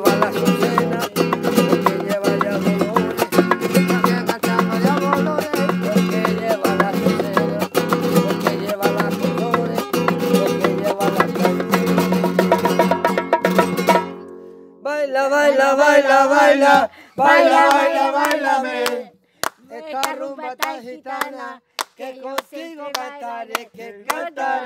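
Acoustic guitar strummed fast and steadily. About fourteen seconds in, the strumming breaks off and a wordless sung melody takes over, with a few sparser guitar strokes under it.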